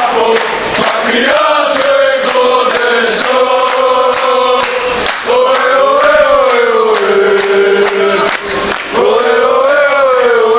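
Many men's voices chanting a football supporters' song in unison. They hold long sung notes that rise and fall, and sharp hits keep time under the singing.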